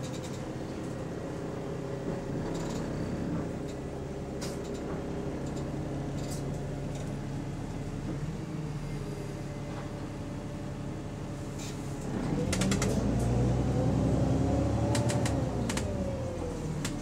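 A London double-decker bus's diesel engine, heard from inside the passenger saloon. It idles steadily, then about twelve seconds in the bus pulls away: the engine gets louder and its note rises and then falls back. A few rattling clicks come through from the bodywork.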